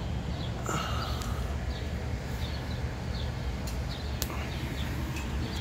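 Small bird chirping, short high chirps repeated about twice a second, over a steady low rumble. A single sharp click about four seconds in.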